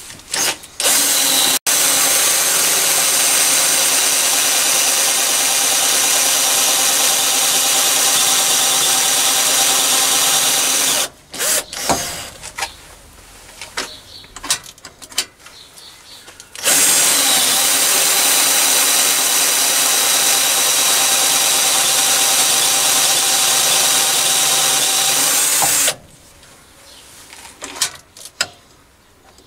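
Toolpost drill's motor running steadily as a 1/8 in bit drills index holes into a metal ring on the lathe, in two runs of about ten seconds each. In between come scattered clicks and knocks as the lathe chuck is turned by hand to the next hole.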